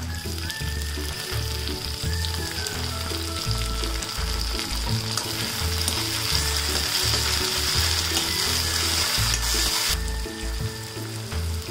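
Hot oil sizzling as chopped tomatoes are tipped into a wok of frying onions and stirred in. The sizzle drops away sharply about ten seconds in.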